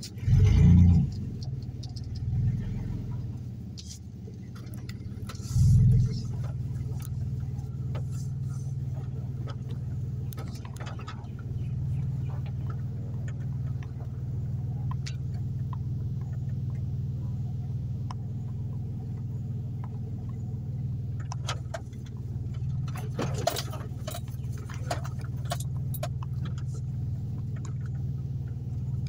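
Steady low rumble of a car's engine and tyres heard from inside the cabin while driving slowly. Two dull thumps come about half a second in and near six seconds, and later there is a spell of light clicking and jingling.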